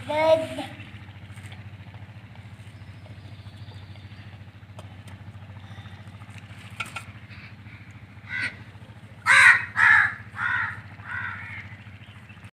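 A crow cawing, a run of loud, harsh caws about a half-second to a second apart starting some eight seconds in, over a steady low hum.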